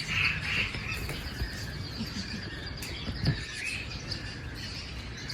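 Many small caged birds chirping and chattering together, with a quick trill running high above the rest. A single short thump a little past three seconds in is the loudest moment.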